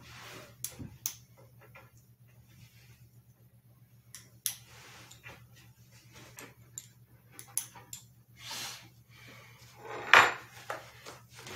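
Scattered clinks, knocks and rattles of metal hardware and wooden bed-frame parts being handled during furniture assembly, with a louder knock and scrape about ten seconds in. A faint steady low hum runs underneath.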